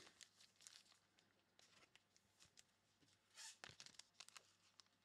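Faint crinkling and clicking of trading cards and pack wrappers being handled, with a louder crackle about three and a half seconds in.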